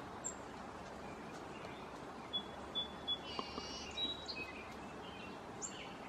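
Small birds chirping: a few short high chirps and a brief trill bunched in the middle, over a steady background hiss. A few light taps among them, a bird pecking seed on a wooden rail.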